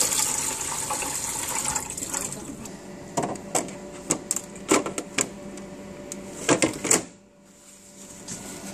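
Tap water running into a sink, fading out about two seconds in, then a string of about ten sharp knocks and clatters as the coffee machine's drip trays are handled and set in place.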